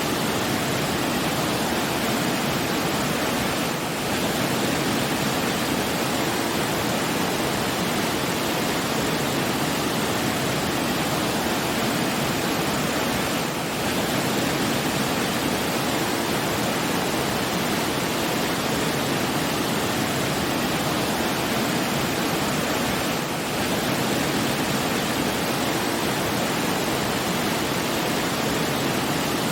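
Steady rushing of falling water, an even noise with no music or tones, dipping slightly in level three times about ten seconds apart.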